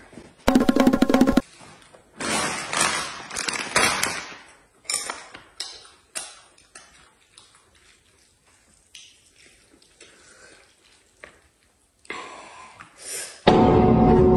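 A short, loud rattling burst about half a second in, then chopsticks and bowls clinking and rustling at a meal. Music comes in loud near the end.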